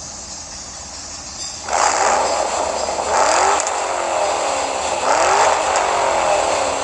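Toy Formula 1 race car making a revving engine sound that starts about two seconds in and swells up and down in repeated sweeps.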